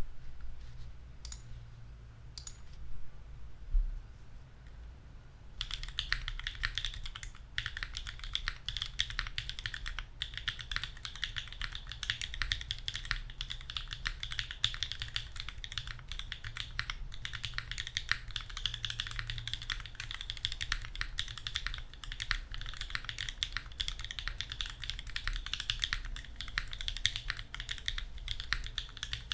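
Custom Unikorn R2.1 mechanical keyboard with lubed Raeds linear switches on a carbon fiber plate and GMK keycaps, being typed on. A few separate keystrokes come first, then fast, continuous typing from about five seconds in.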